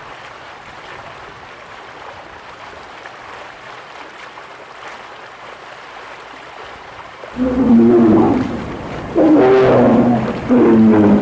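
A bear calling: after a stretch of quiet steady hiss, about seven seconds in it gives three loud, drawn-out roaring calls with a clear pitch, the later ones dropping in pitch at the end.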